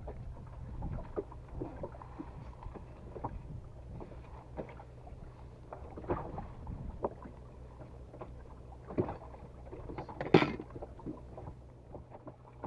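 Scattered clicks and knocks from a spinning rod and reel being handled on a small boat's deck, over a steady low hum, with a louder knock about ten seconds in.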